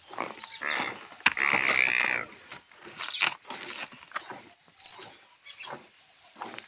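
Metal neck chain on a young water buffalo clinking and rattling as the animal moves its head, with a louder higher-pitched animal call, its pitch wavering, about a second in.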